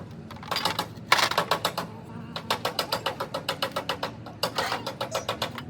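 Rapid mechanical clicking, about ten clicks a second, in four bursts separated by brief pauses.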